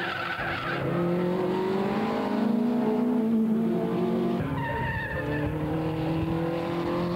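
Several 1970s road-sports racing cars' engines running hard through a tight bend, several engine notes overlapping, the pitch stepping up or down about a second in and again past the four-second mark as they shift gear and accelerate out.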